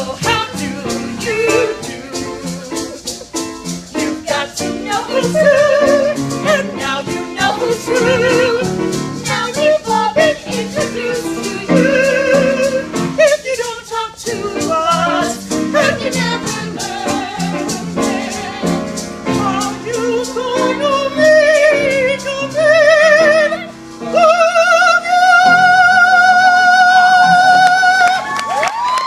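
Song with a steady beat and an operatic vocal passage: a voice singing with strong vibrato, climbing to a long held high note near the end.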